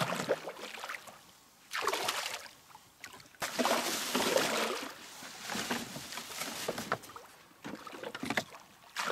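A hooked Papuan black bass thrashing at the surface, in several bursts of splashing, the biggest about three and a half to five seconds in.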